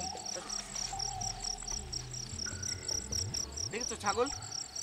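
Crickets chirping steadily, a rapid, even train of high chirps, with a brief gliding voice-like sound about four seconds in.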